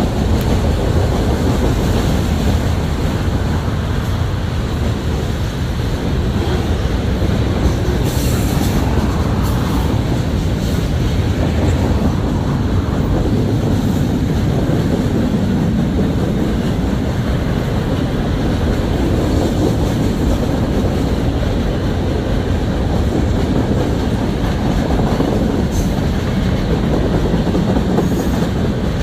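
A long CN freight train's cars rolling steadily past: a continuous, even rumble of steel wheels on rail.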